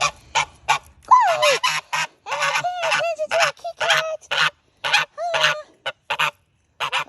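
Domestic goose honking repeatedly: a rapid run of short, harsh calls, several a second, with a few longer pitched honks among them.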